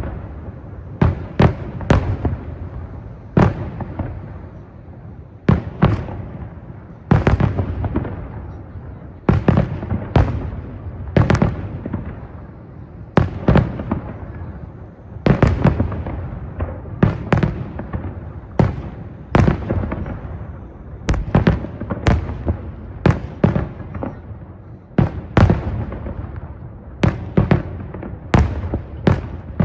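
Aerial firework shells bursting one after another, a sharp boom every second or two, each trailing off in a long rolling echo.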